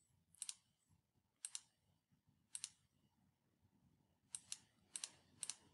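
Computer mouse button clicked about six times, each a faint press-and-release double tick, about a second apart at first and quicker near the end, as the next-page button of a document viewer is pressed again and again.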